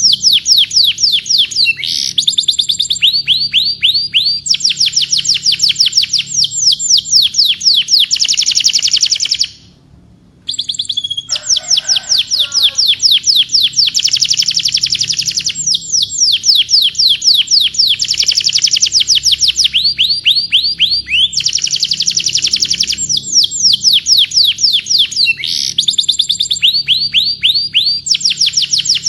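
Domestic canary singing: long rolling trills of rapid, evenly repeated high sweeping notes, changing to a new phrase every second or two. The song breaks off for about a second a third of the way in, then resumes.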